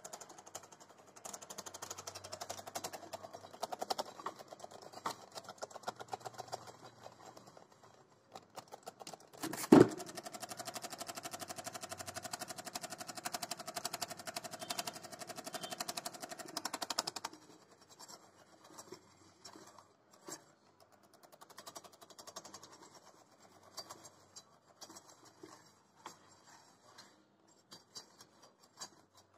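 Small electric motor of a homemade automatic utensil washer spinning a scrub brush against a steel plate, with a fast rattling scrub. About ten seconds in there is one sharp knock. The motor then runs steadily with a hum for about seven seconds and stops suddenly, and light clicks and taps follow.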